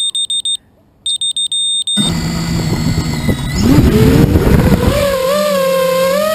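Vortex 230 Mojo quadcopter's beeper sounding in rapid high-pitched pulses, then cutting off about two seconds in as the quad's motors spin up. The motor whine rises in pitch and settles into a steady hum as the quad lifts off.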